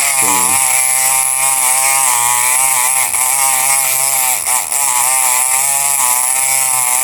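Kronos electric lock pick gun by Multipick running with a loud, steady buzz whose pitch wavers, its pick needle vibrating against the pins of a lock it cannot open, one with spool or security pins. It is switched off right at the end.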